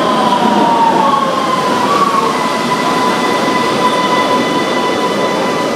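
Vienna U-Bahn subway train slowing into a station: a high whine that sinks a little in pitch over the first two seconds and then holds steady, over the rumble of the wheels on the rails.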